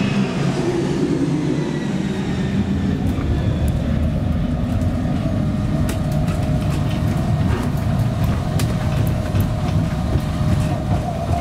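Inside a Heathrow pod personal rapid transit car running along its concrete guideway: a steady rumble from the rubber tyres with a steady electric-drive whine. A departing jet airliner's engine whine falls away in the first couple of seconds.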